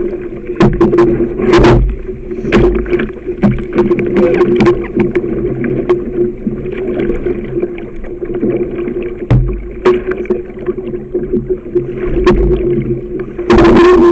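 Canoe running through shallow river rapids: rushing, splashing water with repeated sharp knocks against the hull and a steady hum underneath. There is a loud burst of splashing near the end.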